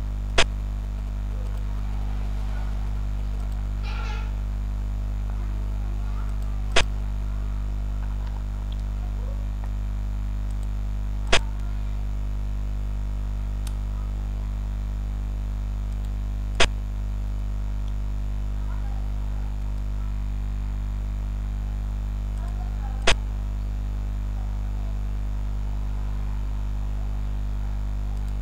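Five short, sharp clicks several seconds apart, each one a piece being moved on a computer xiangqi board, over a steady low hum.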